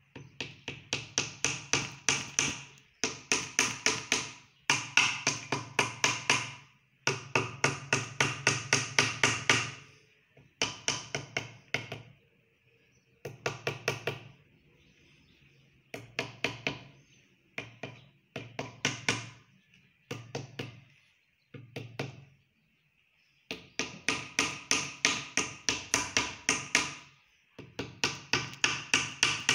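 Fast runs of light tool strikes on metal at the top of a bare Renault Energy engine block, a few taps a second in bursts of one to three seconds. Each burst rings through the cast block, with short pauses between bursts.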